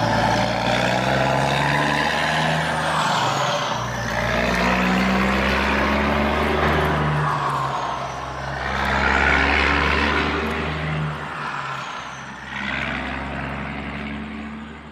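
Heavy truck engine running, swelling and easing every few seconds, with a high falling whine on each swell. It fades out at the end.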